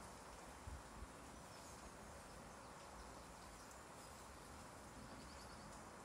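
Light rain falling steadily on a garden, a faint even hiss, with a few faint bird chirps and a short trill near the end. There is a brief low bump under a second in.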